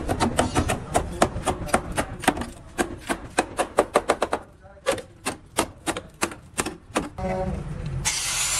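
Hammer rapidly striking a rusted sheet-steel rocker panel, about five blows a second with a short pause midway, knocking loose the rotten metal and rust. Near the end an angle grinder starts cutting into the rusted panel.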